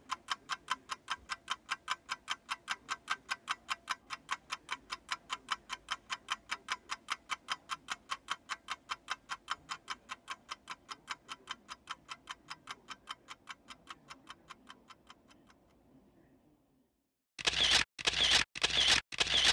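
Mechanical watch movement ticking steadily at about five ticks a second, consistent with the 18,000 beats-per-hour Poljot 2612.1, fading away about three-quarters of the way through. Near the end a louder run of sharp clicks starts, about two a second.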